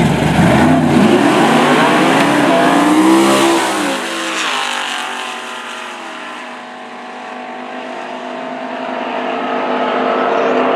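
Chevrolet Chevelle and Chevrolet Malibu drag cars launching and accelerating hard side by side, engines revving up in rising pitch with tyre squeal from one car spinning its tyres. About four seconds in the engine sound drops and fades as the cars run away down the quarter mile.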